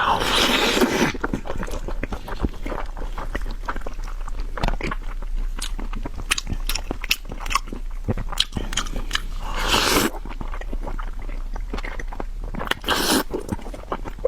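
Close-miked eating of braised pork trotter: biting and chewing, a dense run of short clicks, with louder bites near the start, about ten seconds in and near the end.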